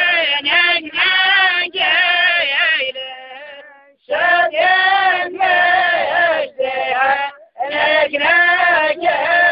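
A single voice singing Soqotri poetry unaccompanied, in short melodic phrases. It fades away about four seconds in, breaks off briefly again near eight seconds, then carries on.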